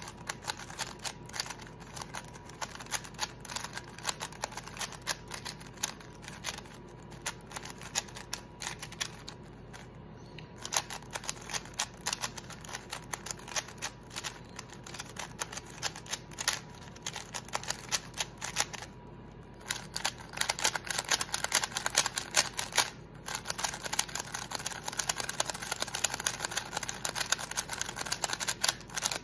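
MoYu WeiLong WRM V9 magnetic 3x3 speedcube being turned fast, a dense run of plastic clicks and clacks from its layers. There are short pauses about ten and nineteen seconds in, and the turning gets faster and louder over the last third.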